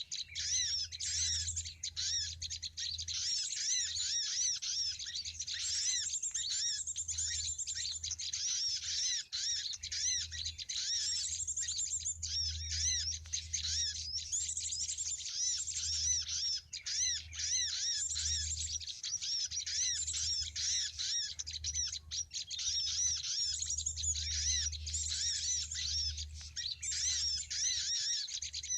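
Bar-winged prinias (ciblek) chirping: a dense, unbroken stream of rapid high chirps.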